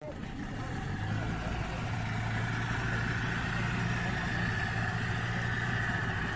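Boat engine running steadily at a constant speed while the boat is under way, a low even hum with a hiss of water and wind over it.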